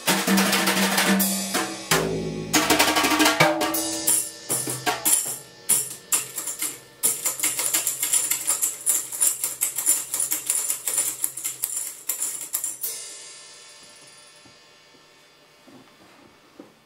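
Acoustic drum kit played freely: loud, ringing drum and cymbal strokes, then a fast flurry of lighter strokes for several seconds. The playing stops about thirteen seconds in and the ringing dies away.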